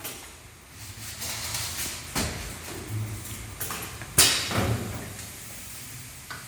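Evaporator tube-expander machine working: two sharp knocks about two seconds apart, each trailing off in a hiss, with lighter clanks between them over a low steady hum.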